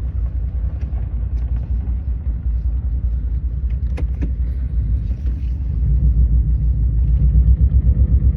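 A 2002 Subaru Legacy's naturally aspirated flat-four engine running with an uneven, pulsing low rumble, louder from about six seconds in. The rough 'dug, dug, dug' beat is the sign of a misfire on cylinder 1.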